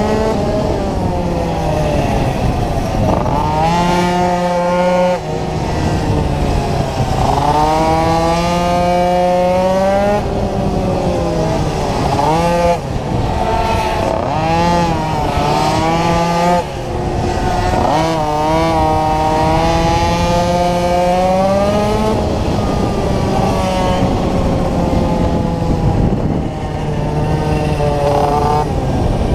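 Small racing engine heard onboard at full race pace, its note repeatedly climbing and then dropping back as it laps a tight circuit.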